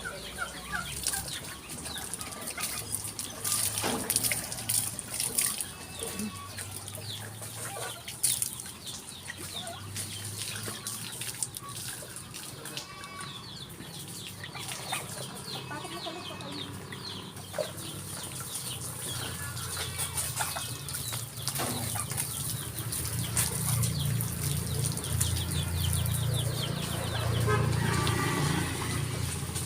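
Chickens clucking, with scattered knocks and clicks. A low, steady hum builds up over the last several seconds.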